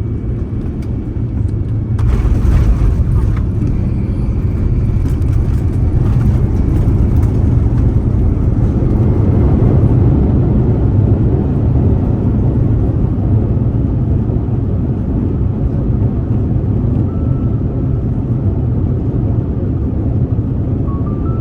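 Airbus A350-900 cabin noise on arrival: a steady low rumble of engines and airflow. About two seconds in it jumps suddenly louder and harsher, and it stays loud for several seconds before easing a little.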